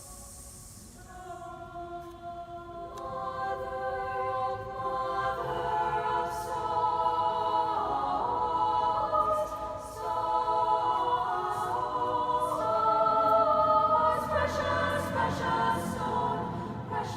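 A choir singing held chords that change every second or two, swelling louder after the first few seconds, with a few sharp clicks over the singing.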